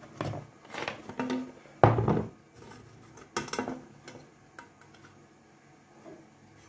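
Clatter of a ceramic plate and a fluted metal tart tin knocking and scraping together as a cake tin is flipped over onto the plate and lifted off. There are several knocks in the first few seconds, the loudest about two seconds in, then only light handling.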